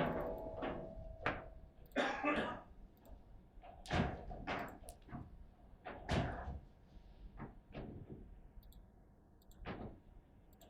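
Table football in play: the ball knocked by the figures and rods, about ten irregular sharp knocks and thuds, the loudest near the start and around the middle, thinning out near the end.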